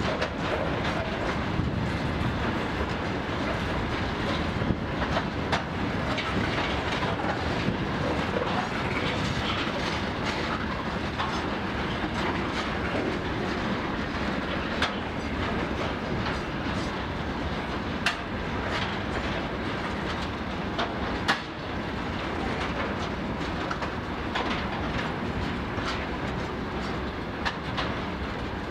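Freight train of covered hopper wagons rolling past at close range: a steady rumble of steel wheels on the rails, with scattered sharp clicks as the wheels run over rail joints.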